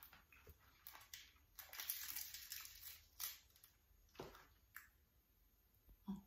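Grilled catfish being torn apart by hand: soft crackling and tearing of the charred skin and flesh, loudest about two seconds in, with a few small clicks.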